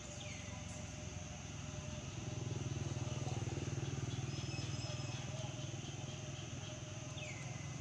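Low drone of a motor vehicle's engine passing in the background, swelling from about two seconds in and easing off toward the end. Two short falling chirps sound, one near the start and one near the end.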